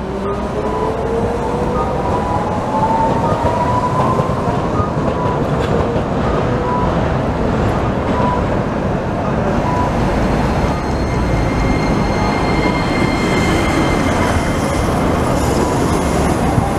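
Street traffic dominated by Hiroden electric trams. In the first few seconds a tram's traction motors whine steadily upward in pitch as it accelerates. A steady rumble of passing road and rail traffic follows, including a city bus. Near the end a rising motor whine returns as a modern low-floor tram passes close.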